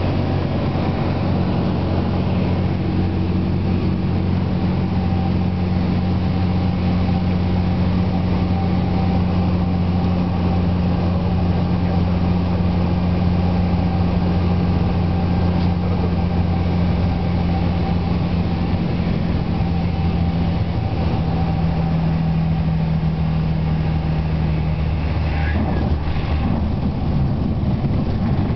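Cessna's engine and propeller droning steadily through approach and landing, heard from inside the cabin; the pitch dips slightly about three quarters of the way through.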